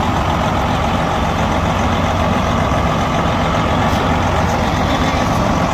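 A semi-truck's diesel engine running with a steady, loud drone.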